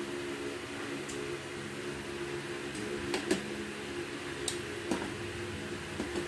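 Eating at a table: a few light clicks and taps of fingers and dishes, the loudest about three seconds in, over a steady low machine hum.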